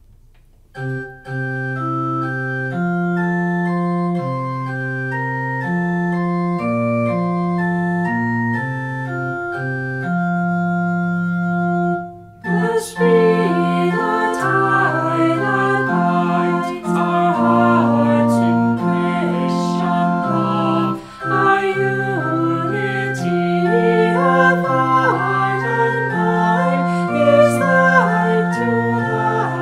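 Organ playing a slow prelude in sustained chords. About twelve seconds in, it grows fuller and busier, with many more notes moving over the held chords.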